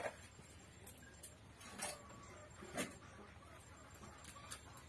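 Faint sounds of people eating rice by hand off banana leaves: soft scattered clicks and rustles of fingers mixing rice, with two brief louder mouth or hand sounds about two and three seconds in.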